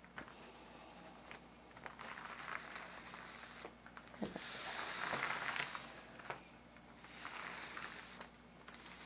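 A paint roller spreading faux glaze over a canvas floor cloth, making a hiss that swells and fades in three passes, the loudest about halfway through.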